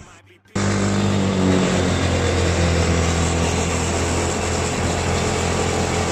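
Vehicle engine running steadily, a constant low drone with a noisy rush over it, cutting in abruptly about half a second in.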